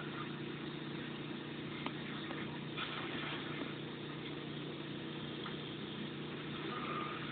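Small engine idling steadily with an even, unchanging drone.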